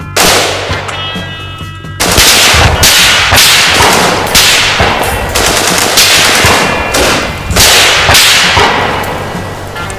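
Rifle gunfire: one loud shot right at the start, then a string of shots in quick succession from about two seconds in, each ringing out before the next. Music sits faintly underneath.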